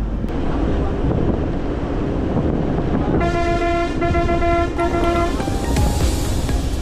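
A vehicle horn honks about three seconds in, a long blast and then a short one, over the steady noise of traffic.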